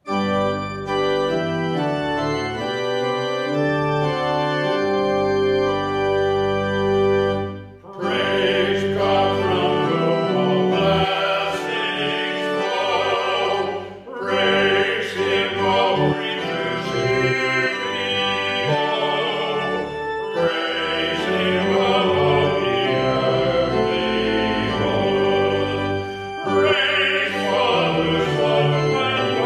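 Church organ playing sustained chords as a hymn introduction. About eight seconds in, two men's voices join, singing the hymn over the organ accompaniment, with short pauses between lines.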